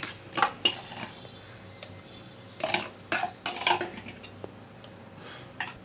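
Metal spoon clinking and knocking against a cooking pot several times as ground masala paste is added to the chicken.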